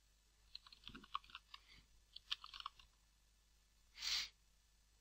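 Computer keyboard typing: a quick run of light keystrokes entering a login username and password, followed about four seconds in by a single short burst of hiss.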